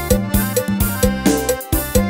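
Yamaha PSR-S750 arranger keyboard playing Thai procession-style ('hae') music, with a steady drum beat of about four hits a second over bass and chords. It is recorded straight from the line input, so no room sound is heard.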